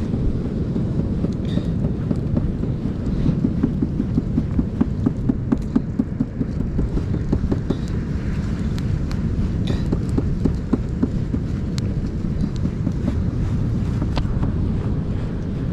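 Wind rumbling steadily on the microphone, with scattered small clicks and taps of a knife and hands working squid bait on a plastic tackle-box lid, most of them in the middle of the stretch.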